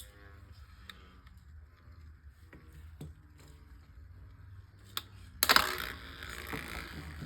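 Beyblade Micros spinning tops battling in a small plastic stadium: faint ticks as they touch, then a sharp click about five seconds in and a louder rattling clatter as they collide and one is knocked about, fading as it slows.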